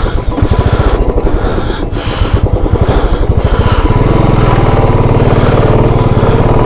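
Motorcycle engine running close by, its fast low pulsing uneven at first, then settling into a steadier, louder note about four seconds in.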